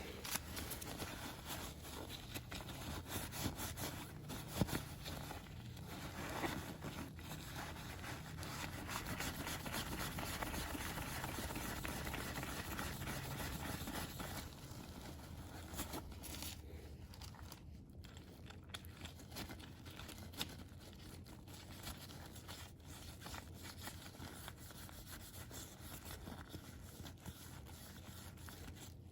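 Continuous scraping and rustling with scattered small clicks, hands working on the parts of a PECS reusable oil filter being taken apart and cleaned.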